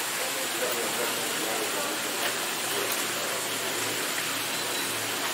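Steady rushing noise at an even level, with faint, indistinct voices in the background.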